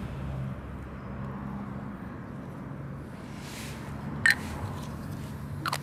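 Steady low hum of outdoor street background, with one sharp click just over four seconds in as the tablets go into the plastic film canisters.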